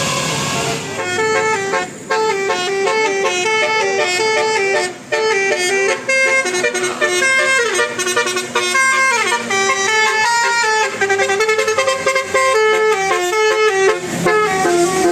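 Basuri-type telolet bus horn playing a fast tune of short stepped notes, starting about a second in and stopping just before the end.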